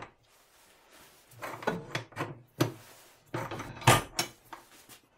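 Steel plate of a welded tilting vise base swung down on its pipe-knuckle hinge and set onto a wooden bench top: a run of metal clanks and scrapes, the loudest knock just before four seconds in.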